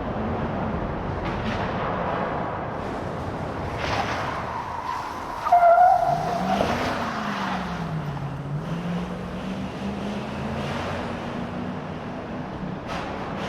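A truck driving inside a building, its engine running steadily and dropping in pitch then rising again in the middle stretch. About five and a half seconds in there is a brief high squeal, the loudest moment.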